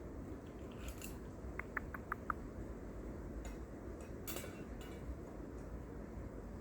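A quick run of about five light clinks about two seconds in, with a couple of brief scrapes, over a steady low background rumble.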